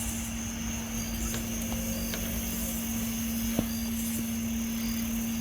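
A steady low hum with a thin, high whine held above it over a low rumble. It is the unexplained 'nging' sound heard from the sky. One sharp click comes about three and a half seconds in.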